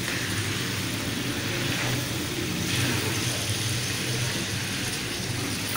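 Chicken frying in a wok, sizzling steadily as it is stirred with a metal ladle, over a steady low hum.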